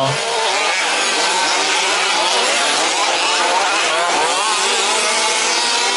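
Several 1/5-scale petrol two-stroke RC trucks racing together, their engines revving up and down at different pitches and overlapping.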